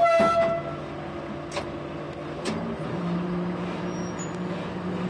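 Narrow-gauge Đuro Đaković diesel railcar's engine running, heard from the cab. A short, loud high tone sounds right at the start, and about three seconds in the engine note rises and grows louder as the railcar moves off slowly.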